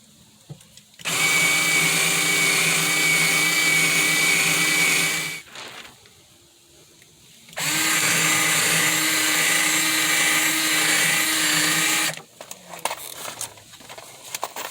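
Power drill/driver running in two steady bursts of about four seconds each, driving screws down into a plywood speaker baffle. A few light handling clicks follow.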